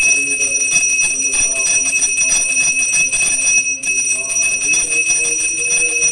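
Temple bells ringing on and on, struck over and over so their high ringing tones hold steady.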